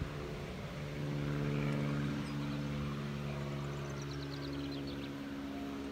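An engine runs steadily at one pitch, starting under a second in and fading near the end. A small bird gives a short descending trill of high chirps about four seconds in.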